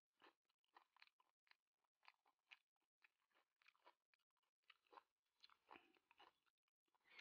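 Faint, close-up chewing and crunching of a mouthful of squid salad with raw green vegetables: a quick run of soft crunches and wet mouth clicks.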